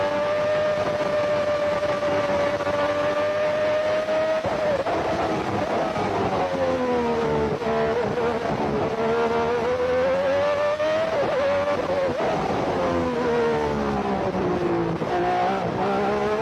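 Lamborghini 3.5-litre V12 of a 1990 Lotus 102 Formula 1 car, heard from onboard at racing speed. It holds a high, steady note for about four seconds, then the pitch drops and climbs again several times as it shifts down and accelerates.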